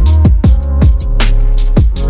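Electronic background music with a heavy bass and a steady drum beat, with deep bass notes that slide down in pitch.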